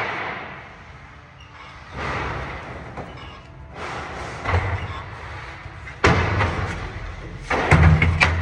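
Irregular heavy thuds and knocks on wooden pallet boards, each ringing on briefly in a hard room, with a quick run of sharp knocks near the end.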